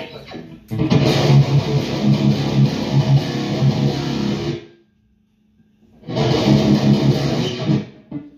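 Electric guitar played through a REVV G4 high-gain distortion pedal: heavy, tight riffing with a deep low end, in two passages broken by a sudden stop of about a second.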